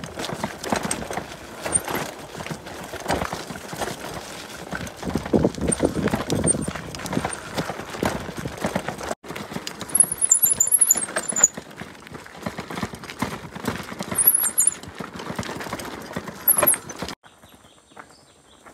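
Urban Terrain mountain bike rattling and clattering as it rides over a loose, rocky dirt track, with tyres crunching on the stones. Near the end the clatter drops away to a much quieter background.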